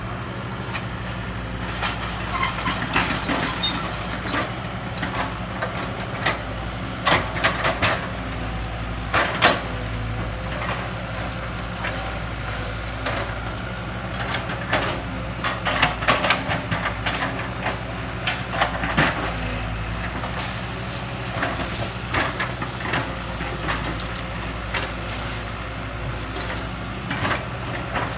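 Kobelco excavator's diesel engine running steadily, with repeated irregular clanks and scrapes over it throughout.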